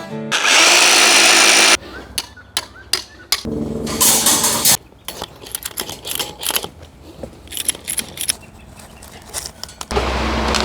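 A quick succession of construction-work sounds: a loud rushing noise for about a second and a half, then scattered knocks and clicks from tools, and a machine engine running steadily near the end.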